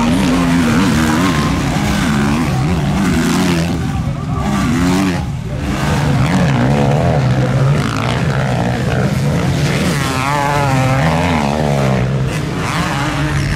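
Motocross bikes' engines revving hard, the pitch rising and falling with throttle and gear changes as they race over the sand track, dipping briefly about five seconds in. Near the end the revs waver quickly up and down.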